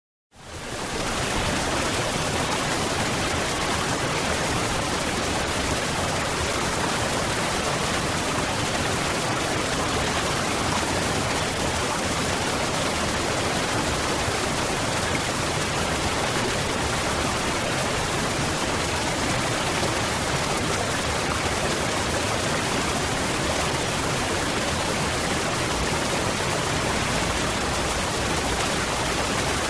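Waterfall: a steady, even rush of falling water that fades in quickly after a moment of silence right at the start.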